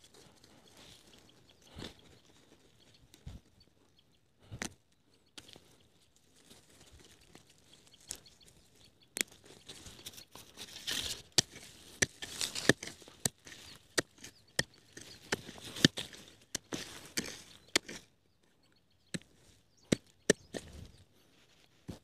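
Irregular crunching, snapping and rustling of sweet potato vines and soil being handled during the harvest. Sharp clicks are scattered throughout and come thickest in the second half, with a short lull near the end.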